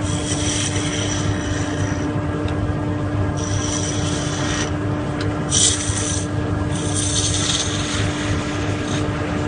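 Electric wood lathe motor running with a steady hum, while a tool is pressed against the spinning wood about four times, each pass a scraping hiss lasting a second or so.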